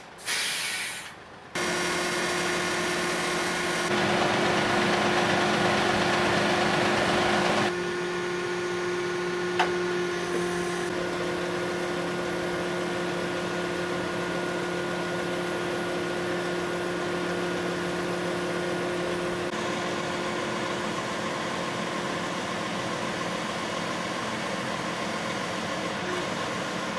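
Bridge inspection truck running with a steady mechanical hum from its engine and hydraulic boom drive while the boom is in motion; the level steps up and down a few times. A short hissy rush sounds in the first second and a single sharp click about ten seconds in.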